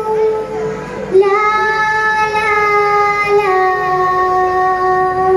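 A group of children singing an Arabic song in unison on long held notes. A new note begins just over a second in and steps down to a lower note at about three and a half seconds.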